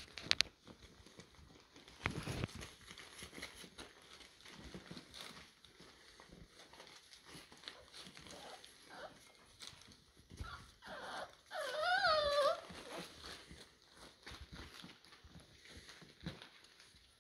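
American Staffy cross American Bulldog puppies shuffling and scrabbling on newspaper, with soft scattered clicks and rustles. About two-thirds of the way through, one puppy gives a loud whine lasting about a second that wavers up and down in pitch.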